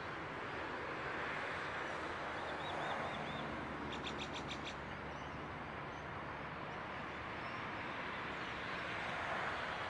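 Hitachi suburban electric train approaching in the distance, a faint steady rumble that swells a little near the end. Birds call over it: a short run of chirps about three seconds in, then a quick rattling trill about a second later.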